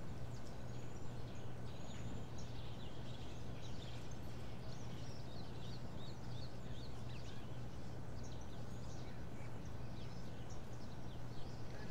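Small birds chirping and singing, many short high calls overlapping without pause, over a steady low hum.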